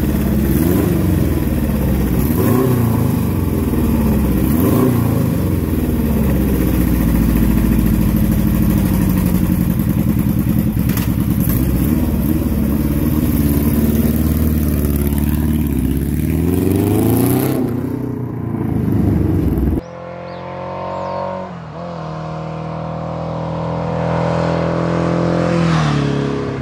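Laverda Jota 1000 3C's inline-three engine, with its 180-degree crankpins, revved again and again while standing still, its pitch rising and falling with each blip of the throttle. About twenty seconds in, it gives way to a motorcycle accelerating along a road, its pitch climbing, dropping briefly at a gear change and climbing again.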